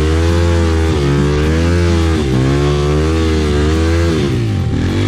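Trail motorcycle engine revving hard under load while struggling up a muddy climb. The revs rise and fall unevenly, then drop sharply near the end.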